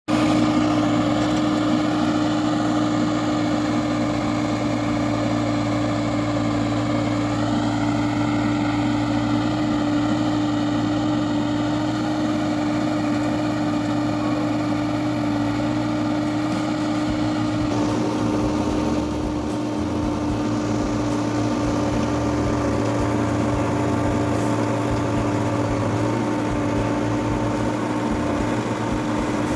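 A steady engine drone with a strong, unchanging hum. It holds level throughout, changing character abruptly about eighteen seconds in.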